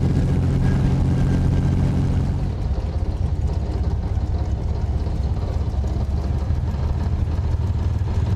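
Rolls-Royce Merlin V-12 aero engine in a 1934 Rolls-Royce car, running steadily at low revs with a deep, even exhaust note. About two and a half seconds in, its note drops lower.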